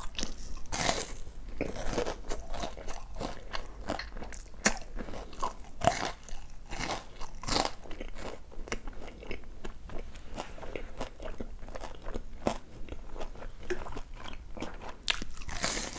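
Close-up crunching and chewing of a breaded, deep-fried cheese pork cutlet (cheese donkatsu): the crisp crust cracks in many irregular crackles as it is bitten and chewed.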